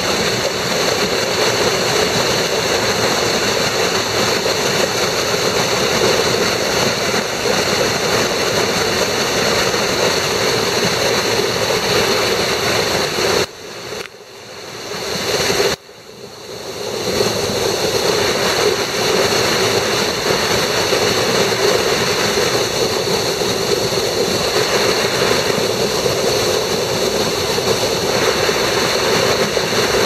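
Loud, steady rush of a waterfall pouring down a rock canyon. The sound drops away suddenly twice, around the middle, for a second or two each time before the rush comes back.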